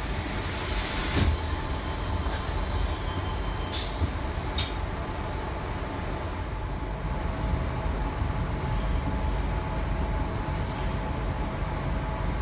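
Original doors of a Sydney Tangara electric train closing: a hiss in the first second, then the door leaves shutting with a bang and two smaller knocks about four seconds in. The train then pulls away with a steady hum.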